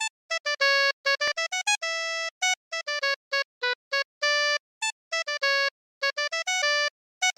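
Synthesizer melody of short, clipped notes stepping up and down, with abrupt dead-silent gaps between them.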